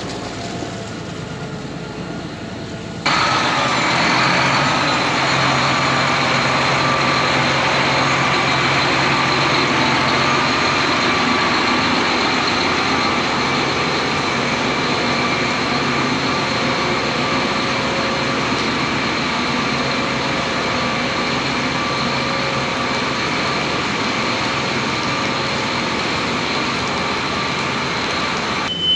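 Tractor engine running steadily. It is fainter for the first three seconds, then jumps suddenly to a louder, even running sound that holds until it cuts off just before the end.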